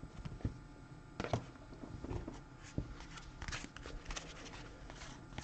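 Trading cards being handled and slid through a pack: faint, scattered clicks and short rustles of card stock.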